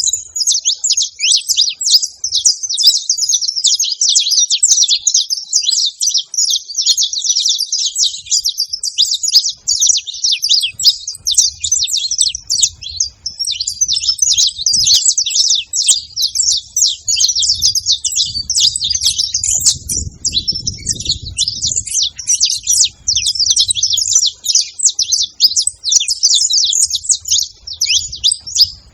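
A flock of saffron finches chirping and chattering together in a dense, continuous jumble of overlapping calls while gathered to feed.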